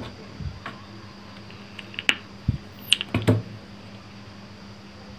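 A few sharp clicks and taps from plugging a 3.5 mm audio jack into a smartphone and handling it, bunched about two to three and a half seconds in, over a faint steady hum.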